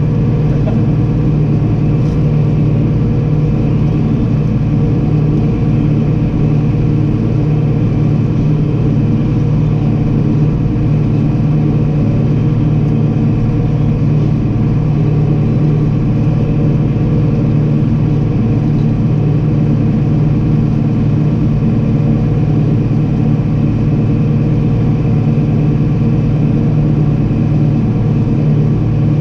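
Farm harvest machinery's engine running at a steady, unchanging drone.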